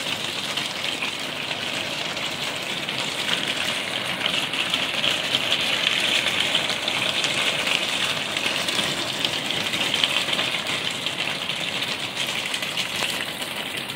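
Hailstones falling on a paved patio, plant pots and a garden table: a steady hiss made of countless tiny ticks.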